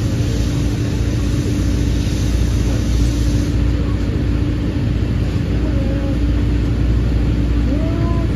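Steady rumble and hum inside a moving passenger train coach, wheels running on the rails.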